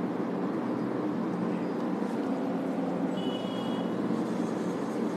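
Steady rushing room noise with no rhythm, and a brief high squeak about three seconds in.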